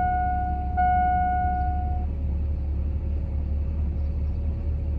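An electronic warning tone sounding steadily in three stretches that stop about two seconds in, over a steady low rumble.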